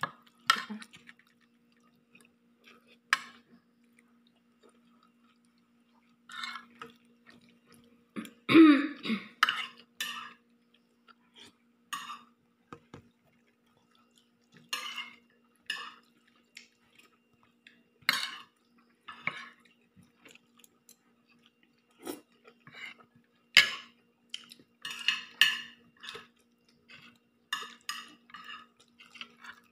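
Eating at a table: a spoon and other utensils clink and scrape against plates and a stainless steel pot at irregular intervals, with chewing, over a faint steady hum. A louder burst comes about eight and a half seconds in.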